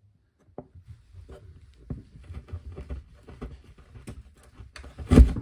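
Screwdriver jabbed again and again through a ceiling, giving a string of irregular crunching pokes and scrapes as holes are punched around a marked circle to cut out a vent opening. A louder thump comes near the end.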